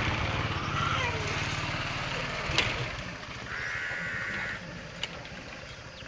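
Motorcycle engine running with a steady low, pulsing rumble that turns quieter after a sharp click about two and a half seconds in. A single bleat sounds in the background around the middle.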